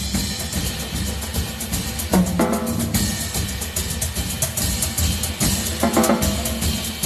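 Drum kit playing an Afro groove, a dense run of bass drum, snare and tom strokes over cymbals.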